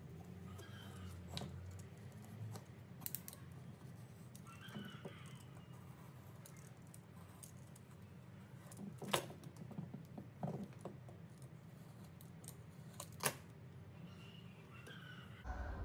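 Handling sounds from cutting tape with a utility knife on a plastic cutting mat: faint rustling of tape with a few sharp clicks and taps, the loudest two about nine and thirteen seconds in, over a low steady hum.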